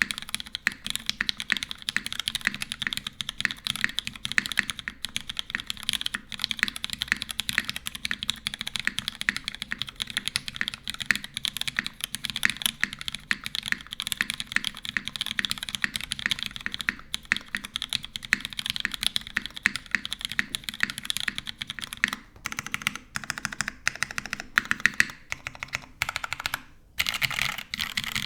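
Fast, continuous typing on a custom mechanical keyboard with lubed, filmed Cherry MX Black (MX2A) linear switches in a full aluminum plate with no foam dampening, under GMK ABS keycaps. The keystrokes grow sparser in the last few seconds, with a short pause near the end.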